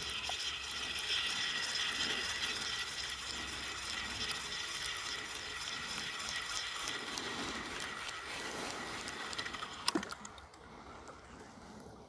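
A fishing reel being wound in: a steady whirring retrieve that stops about ten seconds in with a sharp click.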